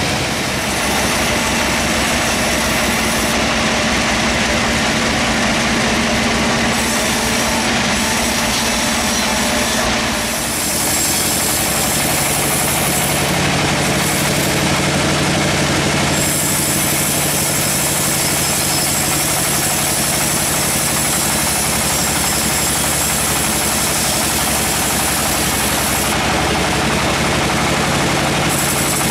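Band sawmill running and sawing through a teak log: a steady machine hum under the dense hiss of the blade in the wood, with a brief dip about ten seconds in.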